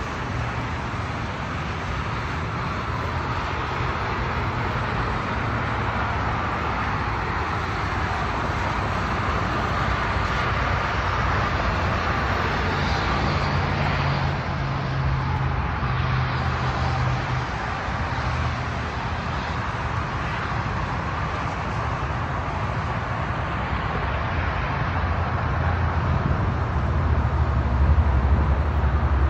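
2018 Dodge Challenger SRT Hellcat's supercharged 6.2-litre V8 idling with a steady low rumble and a hiss over it, growing louder near the end.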